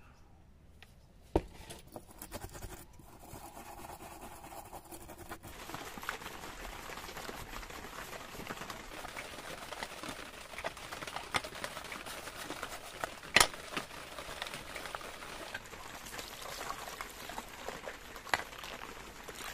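Bristle paintbrush scrubbing a metal bubble-level body in foamy, soapy liquid: steady wet swishing and sloshing from about five seconds in, with small clicks and a few sharp taps.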